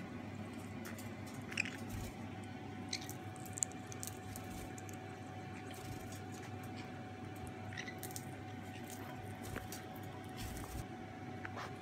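Parrots picking at and crunching popcorn in a stainless steel bowl: soft crunching and chewing with scattered sharp beak clicks and taps.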